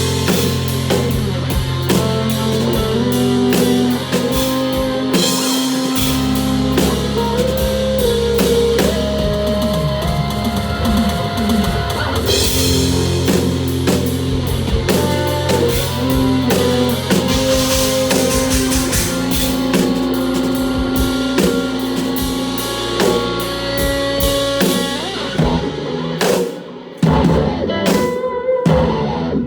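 Live instrumental rock: a drum kit drives under deep sustained Chapman Stick bass notes and plucked, guitar-like melodic lines. Near the end the full band sound breaks up into a few separate accented hits with short gaps between them.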